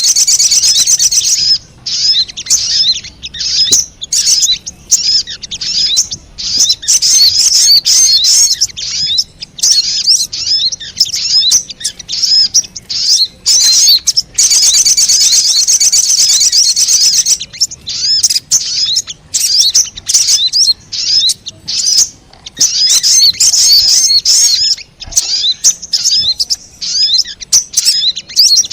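Little spiderhunter (sogon) calls: rapid, high-pitched chattering notes, in continuous runs at the start, in the middle and near the end, broken into short bursts in between. It is a lure recording played to draw wild birds in.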